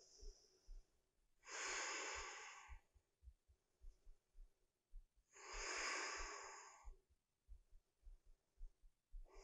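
A woman breathing: two slow audible breaths, each about a second and a half long and about four seconds apart.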